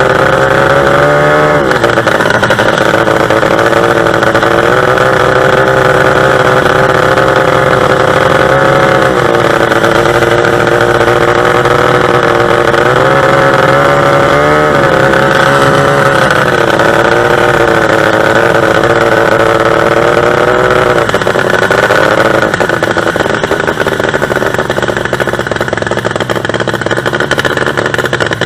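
Two-stroke racing boat engine running hard at high revs, its pitch dipping briefly and climbing back several times. Near the end the clear engine note gives way to a rougher, noisier sound.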